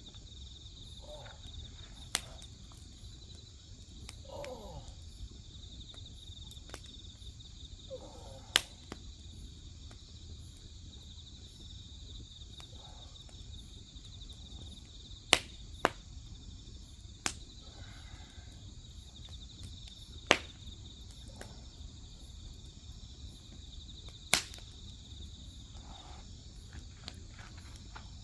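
Crickets and other insects chirring steadily, with a wood fire crackling underneath. Sharp pops from the burning firewood come every few seconds, about seven in all, and are the loudest sounds.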